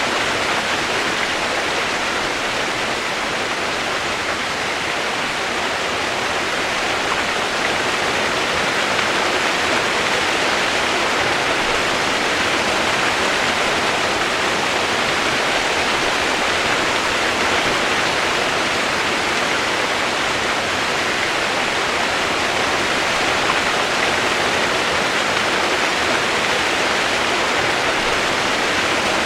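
Running water rushing steadily, an even, unbroken wash of sound with no separate splashes or drops standing out.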